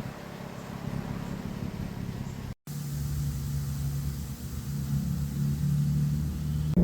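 Nissan 350Z's V6 engine running steadily, a low hum. The sound drops out for an instant about two and a half seconds in and comes back louder.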